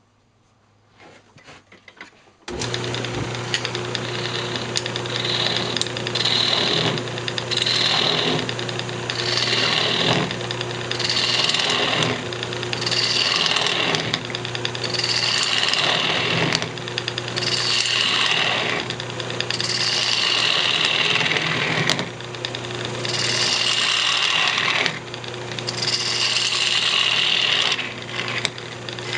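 After a quiet couple of seconds, a wood lathe comes on abruptly and runs with a steady motor hum while a gouge hollows out a spinning maple blank. The cutting comes in repeated passes every second or two.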